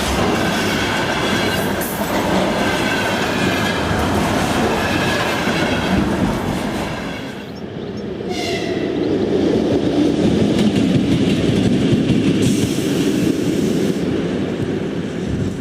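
Container train's wagons rolling past, steel wheels clicking over the rail joints with a faint squeal. About seven seconds in, this breaks off and gives way to a steady rushing noise.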